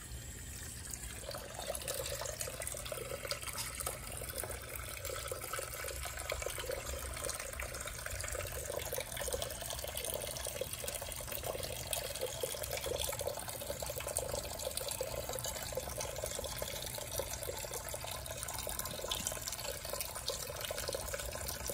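Tap water pouring in a steady stream into a concrete utility sink and splashing over a fish as it is cleaned, rinsing the blood away. The stream settles into an even splash about a second in.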